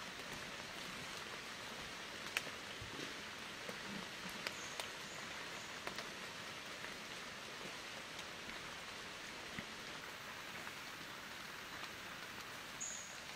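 Steady hiss of light rain, with scattered faint ticks and two brief high chirps, one about halfway through and one near the end.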